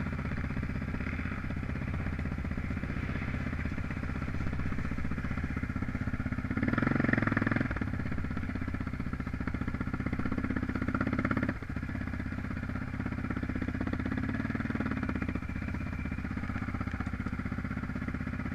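Motorcycle engine running steadily, swelling briefly about seven seconds in and dropping back a little before twelve seconds.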